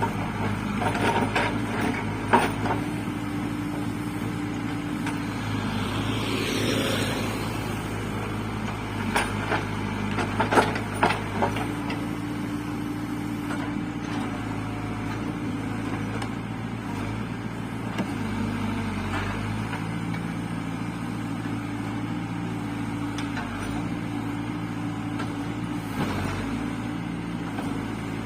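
Caterpillar 424B2 backhoe loader's diesel engine running steadily, its note stepping up and down as it works. Sharp knocks several times, in clusters about two seconds in and about ten seconds in, and a short hiss partway through.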